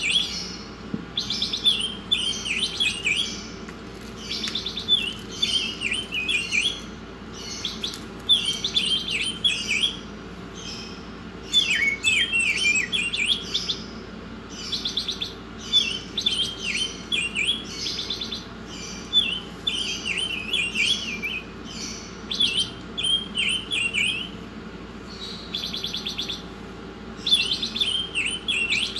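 A songbird singing busily in short, rapid chattering phrases every second or two, with brief pauses between them, over a faint steady hum.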